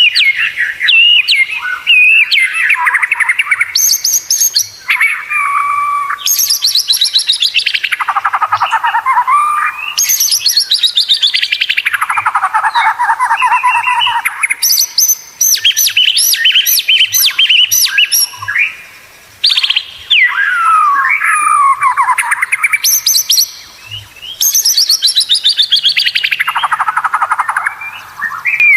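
White-rumped shama (murai batu) singing loudly and without a break, a varied song of fast rattling trills that sweep downward, mixed with short whistled notes. It dips only briefly twice, in the second half.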